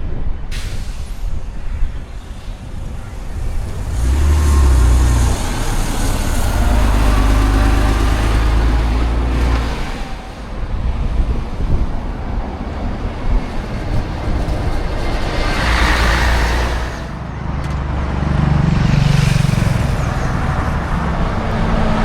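Diesel engines of classic buses running and moving past, their low rumble swelling and fading several times, with a brief hiss about two-thirds through.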